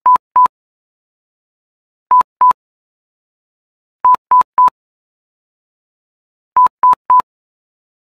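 Short electronic beeps at one steady pitch, all alike, in quick groups of two, two, three and three about two seconds apart, with dead silence between them.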